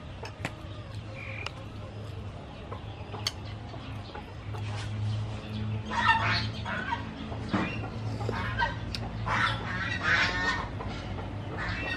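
Domestic fowl squawking and clucking in short bursts, about six seconds in and again around nine to ten seconds in, over a steady low hum.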